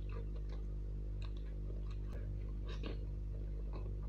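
Close-miked eating sounds: a man chewing chicken and noodles, with scattered wet mouth clicks and smacks. Under them runs a steady low electrical hum.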